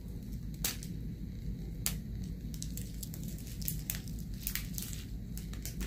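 Small plastic bags of diamond-painting drills being handled and shuffled: soft plastic crinkling with scattered light clicks.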